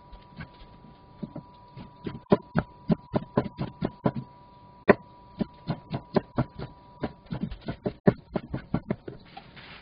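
Kitchen knife slicing fish cake into thin strips on a wooden cutting board: a quick, uneven run of knocks of the blade on the board, about three or four a second, starting about a second in.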